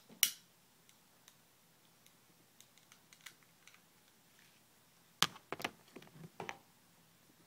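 Trigger of a long-nosed butane lighter clicking once, just after the start, as it is sparked to light a candle. About five seconds in comes a quick run of several sharper clicks and knocks.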